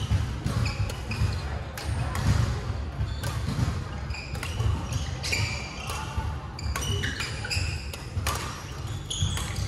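Badminton play on a hard sports-hall court: irregular sharp racket-on-shuttlecock hits and many short sneaker squeaks on the floor, over a steady low rumble.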